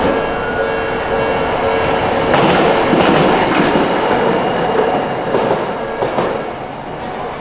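Toden Arakawa Line electric tram passing over a level crossing, its wheels clacking over the rail joints, louder in the middle. The crossing's warning bell rings steadily until about five seconds in.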